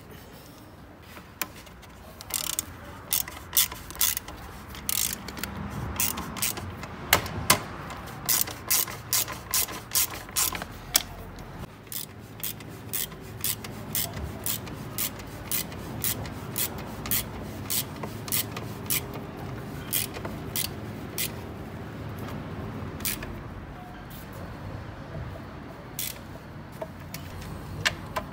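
Hand ratchet wrench clicking in short, steady runs, about two clicks a second, as bolts are tightened down, thinning to a few single clicks near the end.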